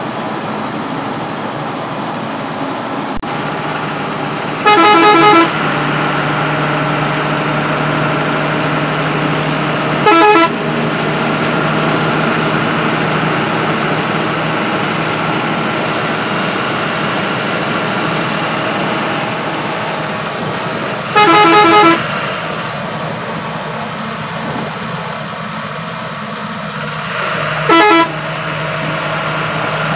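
Bus engine and road noise running steadily in the driver's cab on a highway, broken by the bus's horn four times. There are two blasts of about a second each, near the start and two-thirds of the way through, and two short toots in between and near the end. Each has a fast, warbling tone.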